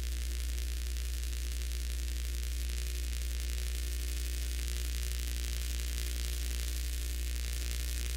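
Steady electrical hiss over a strong low mains hum: recording noise, with no clear sound event of its own.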